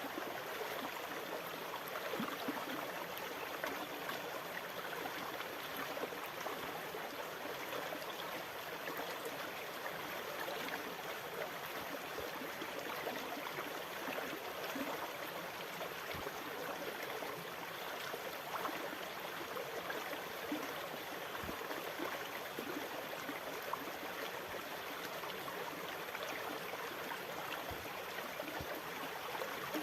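Water running and gurgling as a steady, even rush with no rise and fall.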